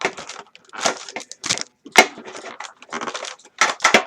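Trading card packs and their packaging being handled: irregular rustling and crinkling, with a sharp click about two seconds in.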